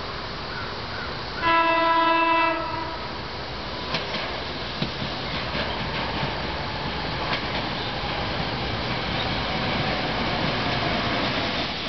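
SEPTA GE Silverliner IV electric commuter train approaching: one horn blast of about a second, about a second and a half in, then the steady running noise of the train drawing closer, with scattered sharp clicks from the wheels on the rails.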